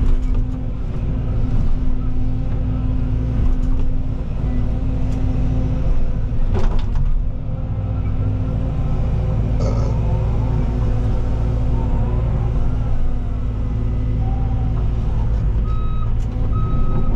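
Cat 313 excavator's diesel engine running steadily, heard from the cab, as the hydraulic boom and thumb handle logs. There is a single sharp clunk about six and a half seconds in and some brief squeaks a few seconds later. Near the end a warning beeper starts, giving short high beeps several times.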